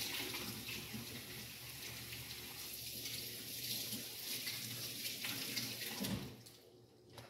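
Water running from a sink tap while a hand is rinsed under it; the flow stops about six seconds in.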